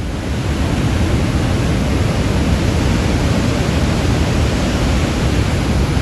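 Roar of a large waterfall: a loud, steady rush of falling water, heaviest in the low end.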